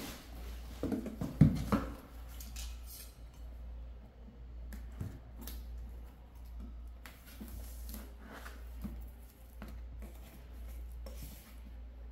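A few knocks as a boxed set is pushed down into a cardboard carton, then scissors snipping and scraping along the seal of the box set, in short scattered clicks.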